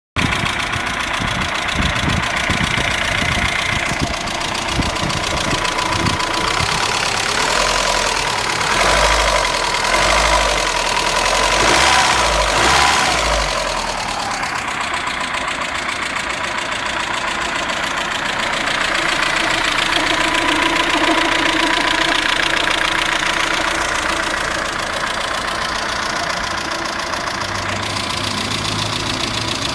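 Chevrolet Vectra 2.0 16v four-cylinder engine idling with an abnormal noise, louder for a few seconds in the middle. The owner suspects the hydraulic lifters or a stud bolt.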